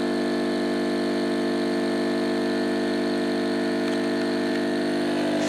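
Hailea 9820 electromagnetic diaphragm air pump running with a steady, even hum, pumping air into a balloon. Its diaphragms are 3D-printed Ninjaflex sealed with latex, and it sounds pretty good, pumping well after the repair.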